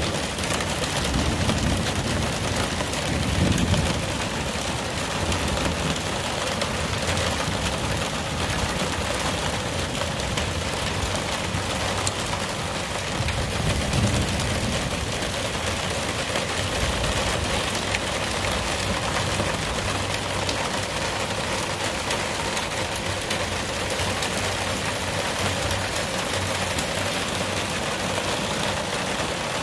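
Heavy rain pouring down steadily in a downpour, with low rumbles of thunder swelling about three seconds in and again about fourteen seconds in.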